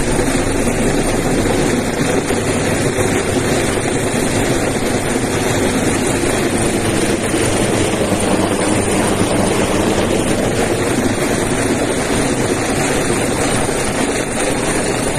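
Helicopter hovering low overhead: a loud, steady rotor and engine noise that holds unchanged throughout.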